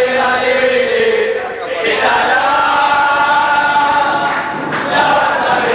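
A crowd of football supporters chanting a song together in unison, with long held notes in the middle.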